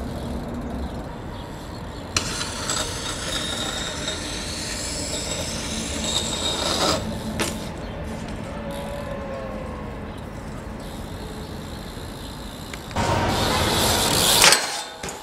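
BMX bike rolling over concrete and paving with a steady rumble of tyres and rattling, broken by a few sharp knocks of the wheels on the ground. Near the end a louder rush builds to a hard impact, as when the bike lands a jump down stairs.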